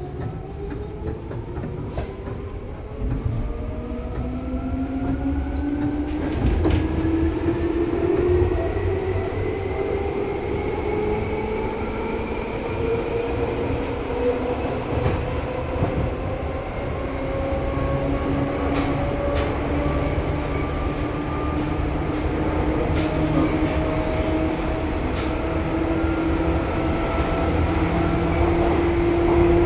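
Seibu 2000 series electric train accelerating: its motor and gear whine rises steadily in pitch over a low running rumble, with a few sharp clicks from the wheels over rail joints.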